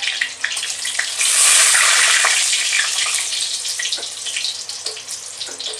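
Bay leaves sizzling and crackling in hot oil and ghee in a kadai; the sizzle surges about a second in, then slowly dies down, with scattered pops.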